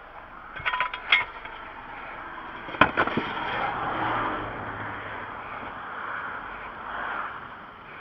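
A quick rattle of metallic clinks, then a sharp clank about three seconds in, followed by the rising and fading rush of traffic going by.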